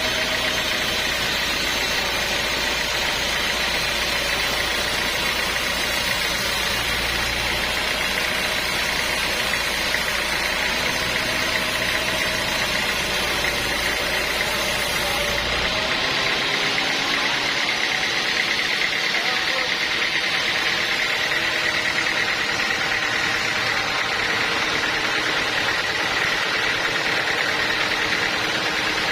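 Sawmill machinery engine running steadily, with a high steady whine over the noise; about halfway through, the deep rumble drops out abruptly.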